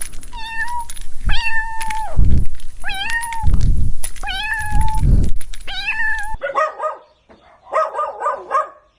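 A cat meowing about five times, each meow a drawn-out call, over bursts of low rumbling noise. A sudden cut about six seconds in leads to a dog barking in quick runs of short barks.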